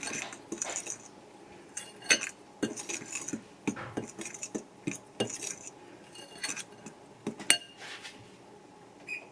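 A utensil clinking and scraping against a bowl in irregular strokes as seasoning is mixed into flour. The sharpest clinks come about two seconds in and again about seven and a half seconds in.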